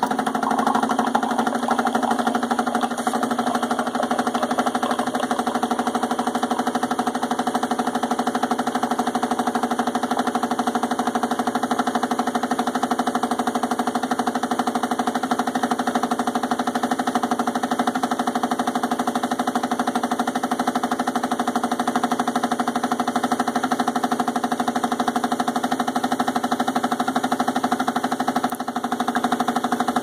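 Braun Tassimo pod coffee machine running its pump while brewing, a loud, steady, tractor-like buzzing hum that the owner says is normal for this machine.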